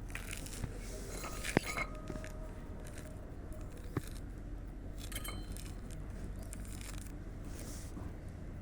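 Knife cutting oranges, with two sharp knocks of the blade about one and a half seconds in and again about four seconds in, and a few fainter ticks, over a steady low background noise.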